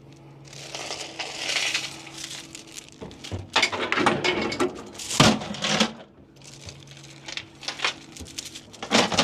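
Steel load-securement chains rattling and clanking as they are hung up in a flatbed truck's headache rack: a stretch of rattling chain at first, then a run of sharp metal clanks from about three seconds in, and more clanks near the end.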